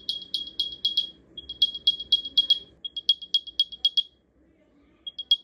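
AirPods Pro 2 charging case speaker playing its Find My alert through a Spigen Rugged Armor case: rapid high chirps, about seven a second. They come in three bursts of about a second each, then stop for about a second before a fourth burst near the end. The alert comes through loud and clear with the case on.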